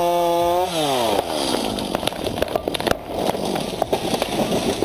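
Chainsaw running at high revs, then winding down about a second in, followed by a few seconds of irregular cracking and crackling of wood and branches as the felled tree comes down.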